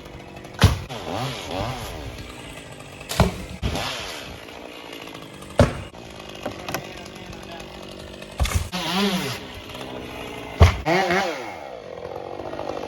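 Chainsaw engine firing in short spells: five sharp knocks about every two and a half seconds, each followed by a brief rise and fall in engine pitch. Near the end it settles into a steady run.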